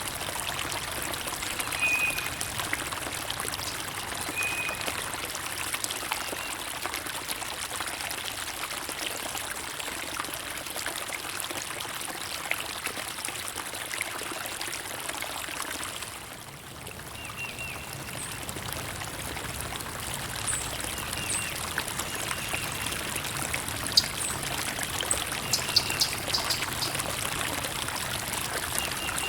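Flowing water trickling and splashing steadily, with short bird chirps now and then over it.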